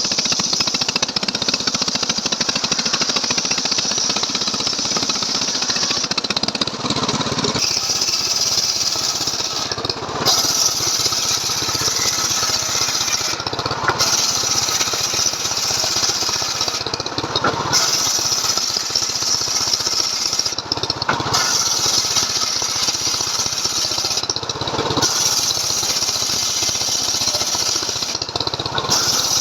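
Stihl MS 381 two-stroke chainsaw running at full throttle under load, ripping through a log. The sound is steady and loud and briefly changes about every three to four seconds.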